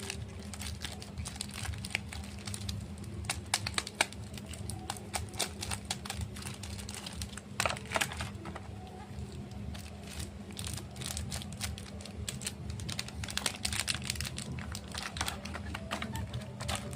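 Chocolate bar wrappers being handled: irregular crinkles, taps and clicks, the loudest around four and eight seconds in, over a steady low hum.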